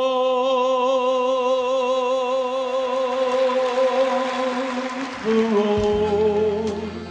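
A singer holds one long note with vibrato on the word "walk" in a slow ballad. About five seconds in, the voice drops to a lower note as a bass comes in underneath.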